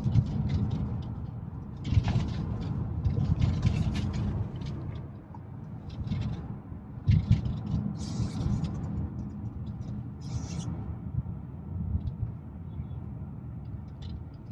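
Car cabin road and engine rumble while driving, steady and low, with a few brief rustling or knocking sounds.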